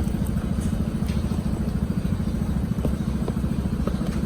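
A steady low mechanical rumble with a fast pulse, like an engine running nearby, with a few faint light clicks over it.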